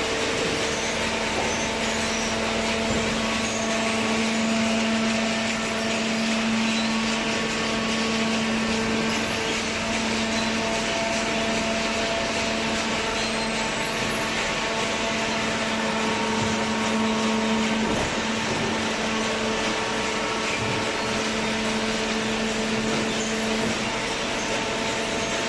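Hydraulic baling press running: a steady machine hum with several held tones over a continuous mechanical noise. The strongest low tone comes in about a second in and drops out near the end.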